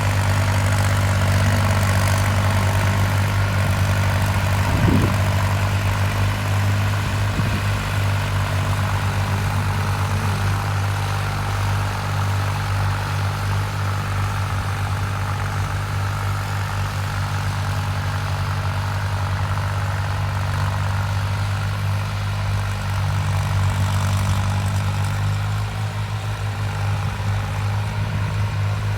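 A heavy engine running steadily with a constant low hum, the sound of farm machinery at work in the field.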